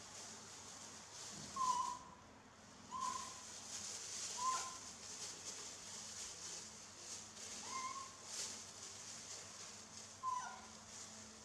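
Baby macaque giving short, high coo calls, five in all, spaced a second or more apart, some gliding down at the end. A plastic bag crinkles faintly underneath.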